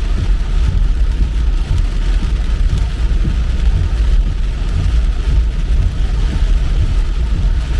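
Car driving on rain-wet roads: a steady low rumble of road and engine noise with an even hiss from the wet tyres.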